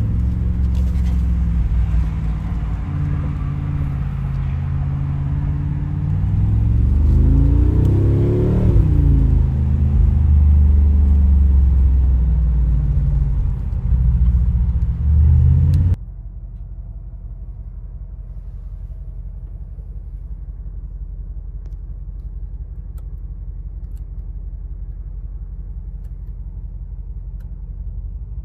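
Mercedes-AMG G63's 4.0-litre twin-turbo V8 running at the exhaust, revved once partway through with the pitch rising and falling back. About halfway through it cuts abruptly to a quieter, steady low rumble.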